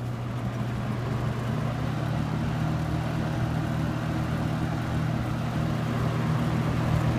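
Superlectric box fan running on high: a steady low motor hum with the rush of air from the blades, slowly growing louder as the fan comes up to speed after being switched up from low.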